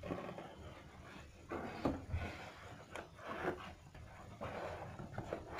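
Handling noise of unboxing: packaging and accessories rubbed, shifted and set down, with a few light knocks.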